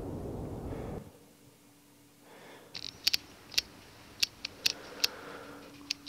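Wind and water noise from the open water cuts off about a second in. It gives way to quiet room tone with a faint steady hum, broken by about ten short, sharp clicks at irregular intervals.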